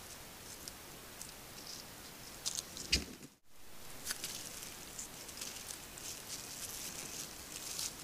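Wild turkeys walking and scratching in dry forest litter: faint scattered crackling and rustling, with a louder rustle about three seconds in before the sound cuts out briefly.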